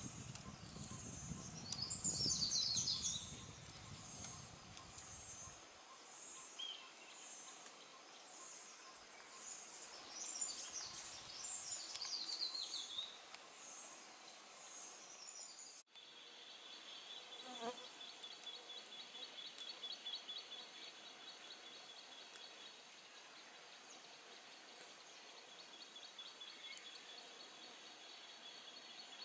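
Tropical rainforest ambience: insects pulse high and steady about once a second, and twittering bird calls come in briefly about two and ten seconds in, over a low rumble during the first few seconds. About halfway through the sound changes abruptly to a steady, high insect trill.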